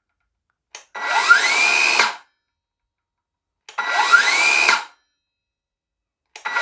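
Evolution R165 18V cordless circular saw run up off-cut twice, with a third start near the end: a click of the trigger, then a motor whine that climbs smoothly in pitch as the soft start brings the blade up to speed, holds for about a second, and stops quickly as the electric blade brake halts it.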